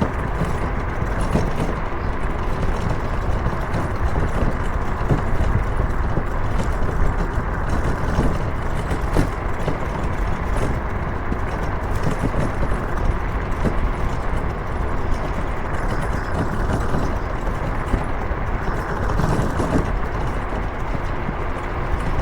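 Steady road and engine noise of a moving car heard from inside the cabin: an even low rumble of tyres and motor with no distinct events.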